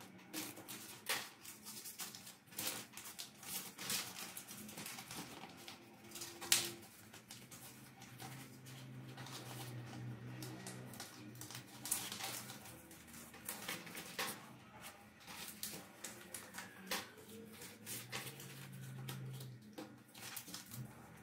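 Clear plastic CD sleeves and the printed paper packaging of a CD single being handled, with irregular crinkling, rustling and small taps and clicks against a cardboard-covered desk. A low hum swells twice, once in the middle and once near the end.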